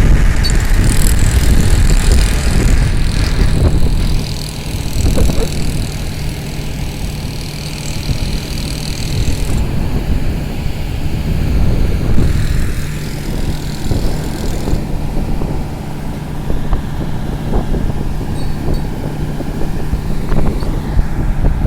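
Crawler crane engine running steadily, with a low hum that sets in about five seconds in, over heavy wind buffeting the microphone.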